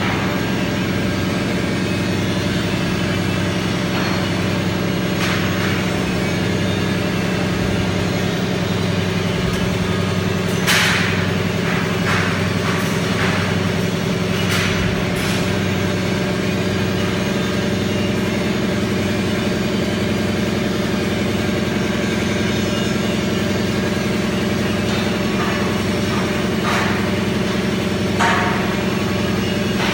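Electric arc welding: a steady buzzing hum from the welding arc and machine, with a few short crackles about a third of the way in and again near the end.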